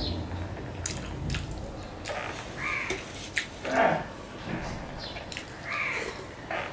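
Eating with the hand from a steel plate: fingers mixing and scraping rice on the plate, chewing and wet lip smacks in short irregular clicks. A few short, rough voice-like sounds stand out, the loudest about four seconds in.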